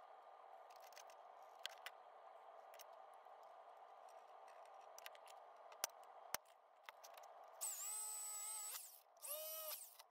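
Small clicks and taps of marking out, then a cordless drill running in two short bursts near the end, the longer one first, each spinning up and winding down, as it drills into the sheet-metal lid of a PC tower. A steady faint hum lies underneath.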